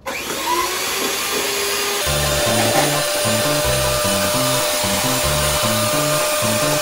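Electric hand mixer running with its beaters in a jug, whipping instant coffee, sugar and water into a cream. From about two seconds in, background music with a bouncing bass line plays over it.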